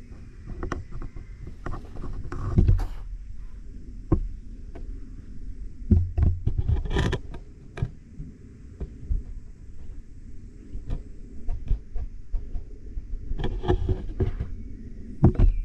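Irregular knocks and rustles over a steady low rumble, in heavier clusters about two and a half seconds in, around six to seven seconds in, and near the end.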